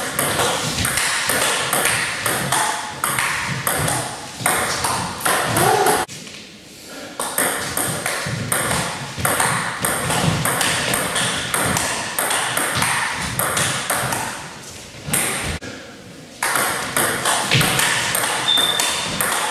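Table tennis rallies: the celluloid-type ball clicking off rubber bats and bouncing on the table in quick back-and-forth succession. Play stops briefly twice, about a third of the way in and again near the end.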